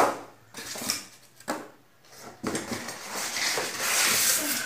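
Cardboard box and polystyrene foam packing being handled: a sharp knock at the start, a few lighter knocks, then a longer stretch of rubbing and scraping of foam against cardboard from about halfway.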